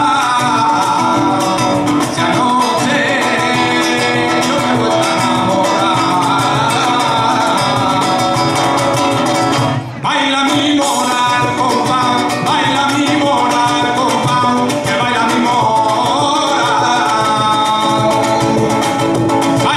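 Live flamenco song: a man singing through a microphone and PA, accompanied by flamenco guitar and cajón, with a brief break in the sound about halfway through.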